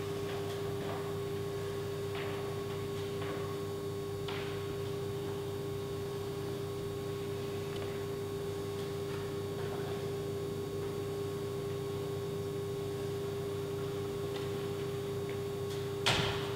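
Steel pallet racking knocked by a climber's hands and bare feet: a few light knocks in the first seconds and one sharper, louder knock near the end, over a steady hum.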